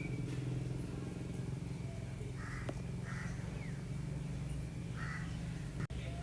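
A crow cawing three times in short calls, over a steady low hum.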